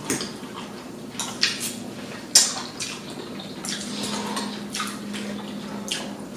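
Two people slurping and eating noodles: a series of short wet slurps, the loudest about two and a half seconds in.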